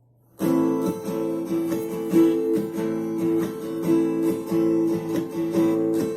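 Acoustic guitar strumming a steady rhythm: the instrumental introduction to a song, starting about half a second in after near silence.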